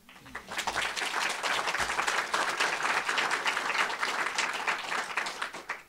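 Small audience applauding: a dense patter of hand claps that builds within the first half second and stops just before the end.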